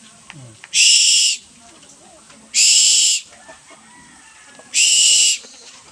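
Owl giving three harsh, hissing screeches, each under a second long and about two seconds apart.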